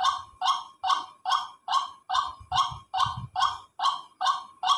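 Recorded call of a white-breasted waterhen (ruak-ruak) played through a phone speaker: the prolonged, continuous version of the call, an even series of short notes at about two and a half a second. It is the call recommended as a lure for trapping waterhens.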